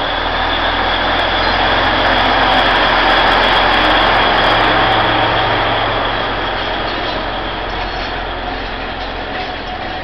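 An Alishan Forest Railway diesel locomotive pulls its train out past the camera, its engine running with a steady low hum. The noise swells to its loudest three or four seconds in, then eases as the passenger cars roll by on the narrow-gauge track.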